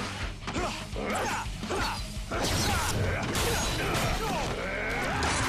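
Fight-scene sound effects: a run of sharp hits and clashes with gliding whooshes, over a steady action-music bed.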